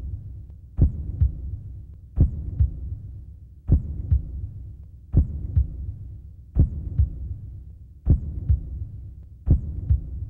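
A heartbeat: slow, even lub-dub double thumps, about one pair every second and a half, over a faint steady hum.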